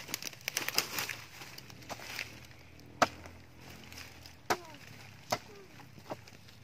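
Crunching of dry grass and twigs underfoot, then a hand digging tool chopping into the soil in four sharp strikes about a second apart to open a planting hole.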